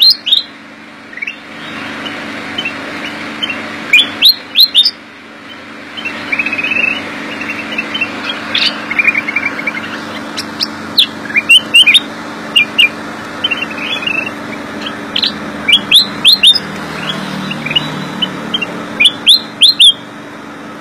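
Caged black-crested bulbul (kutilang emas) singing: clusters of short, clear, loud whistled notes with quick pitch sweeps, repeated every second or two, with a fast trill about nine seconds in. A steady low hum runs underneath.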